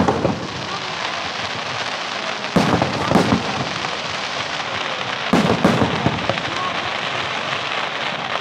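Aerial firework shells bursting in loud bangs: one at the very start, a pair about two and a half seconds in, and another pair about five and a half seconds in. Between the bangs the display keeps up a steady crackling hiss.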